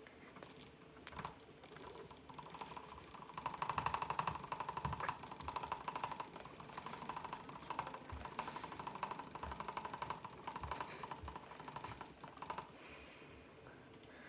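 Computer mouse button clicked as fast as possible in a rapid, steady stream for about ten seconds. It starts about three seconds in after a few single clicks and stops abruptly near the end.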